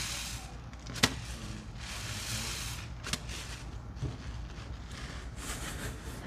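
Wet soapy suds being squished by hand: foamy squishing and crackling in swells, with a sharp click about a second in and a smaller click near three seconds.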